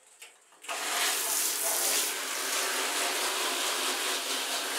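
Handheld shower spraying water onto a window mosquito screen lying in a bathtub, turned on suddenly under a second in and then running steadily.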